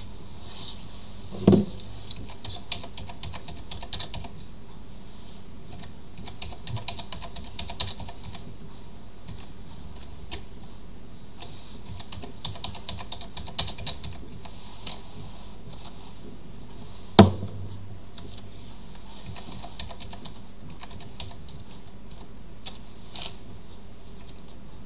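Computer keyboard typing in short, scattered runs of keystrokes over a steady faint hum, with two louder thumps about a second and a half and seventeen seconds in.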